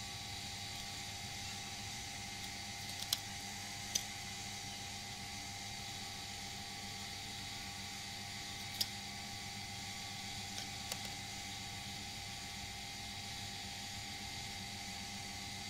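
Steady background hum and hiss with a few short, faint clicks, four times.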